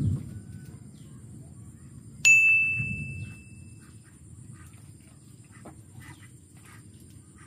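A small bell on a fishing rod tip dings once, sharply, about two seconds in and rings on, fading over about a second and a half: the bite alarm set off by a fish taking the bait.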